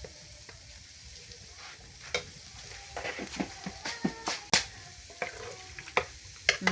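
A spoon stirring a pot of mugunzá, sweet hominy corn cooking in milk, over a low steady hiss of the cooking; from about two seconds in the spoon knocks and scrapes against the pot in irregular sharp clicks.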